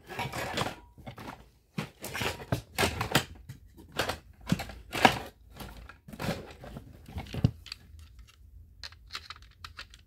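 Handling noise from an Edwards fire alarm pull station worked close to the microphone: a busy run of scrapes, rustles and knocks, then fainter scattered clicks from about seven and a half seconds in.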